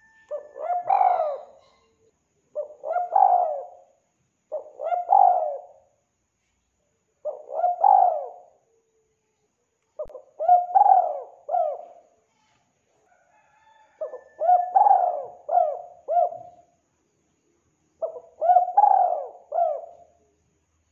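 Spotted dove cooing: seven short phrases of several low coos each, with pauses of a second or two between phrases.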